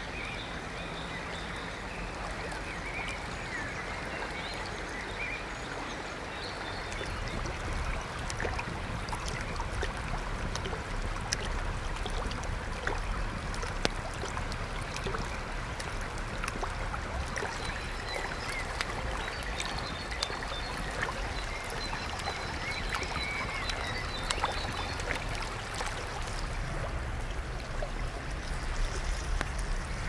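River water flowing steadily, with faint bird chirps and a few scattered small clicks.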